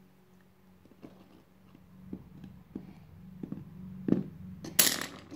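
Plastic toy horse figure tapped and clicked along a hard laminate floor, irregular small hoofbeat-like taps over a low steady hum. Near the end a brief, loud rustling noise, the loudest sound here.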